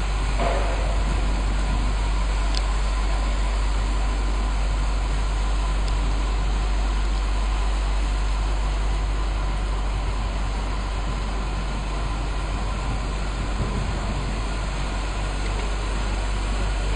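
Steady low rumble and hiss of background noise, unchanging throughout, with no distinct sounds standing out.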